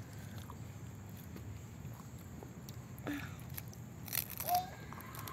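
A bite into a lettuce-leaf wrap of chicken larb, the crisp leaf crunching in a quick cluster of crackles about four seconds in, followed by a brief high squeaky note.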